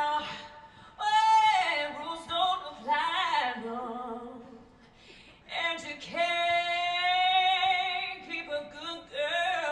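A woman singing a melodic song phrase by phrase, with a long held note about six seconds in.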